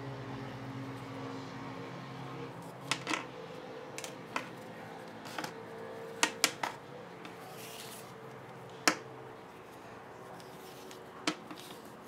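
Handling noise from a fabric-braided 3.5 mm AUX cable being uncoiled and shaken out: about ten short, sharp clicks and taps at irregular intervals as the cable and its metal plugs knock about.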